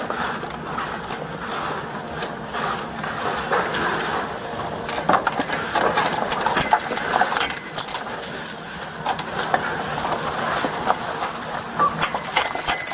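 Metal chain clinking and rattling irregularly as it is hacked at with gardening shears, a dense run of sharp metallic clicks and clinks.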